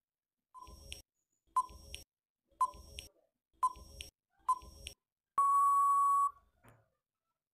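Quiz countdown-timer sound effect: five short beeping ticks about a second apart, then one long steady beep as time runs out.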